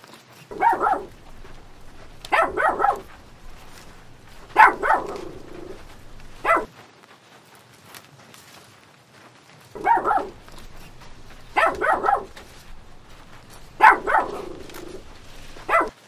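Dog barking in quick bursts of two to four barks, a burst about every two seconds, with a pause of a few seconds midway.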